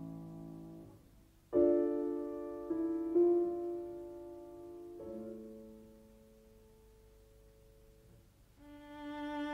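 Slow, gentle piano music: a few chords struck one after another, each left to ring and fade, then a bowed string note swells in near the end.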